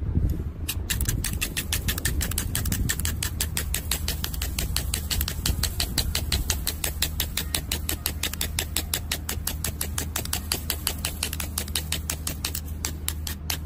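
A knife blade scraped rapidly back and forth along a rod, making even scraping clicks at about eight strokes a second, over a low steady hum.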